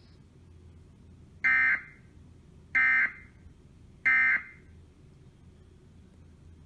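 Emergency Alert System end-of-message data bursts: three short, identical, buzzy bursts about a second and a half apart, the SAME digital code that closes an alert broadcast.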